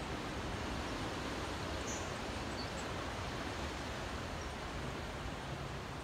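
Steady, even rush of distant ocean surf mixed with wind, with a couple of faint high chirps about two seconds in.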